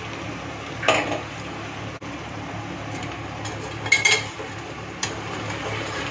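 Steel spatula stirring chicken pieces frying in a stainless steel pot, with a faint steady sizzle underneath. Two loud metal clanks ring out, about a second in and about four seconds in, as the utensils strike the pot.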